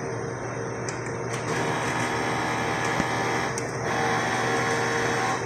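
Large-format inkjet printer running a printhead cleaning cycle: a steady machine hum, with a motor whirring in about a second and a half in. The whirring dips briefly and cuts off at the end.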